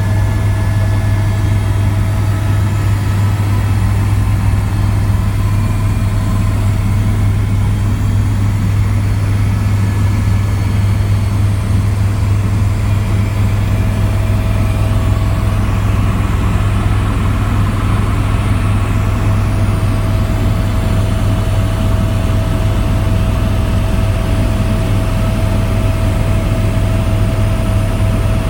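Helicopter turbine and rotor running, a loud steady drone with a deep hum and a faint high whine held at one pitch.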